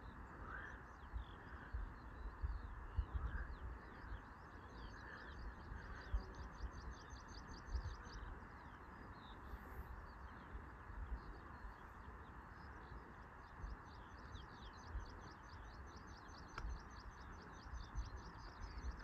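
A small songbird singing: long runs of quick, high notes, pausing around the middle and starting again. Wind rumbles on the microphone underneath.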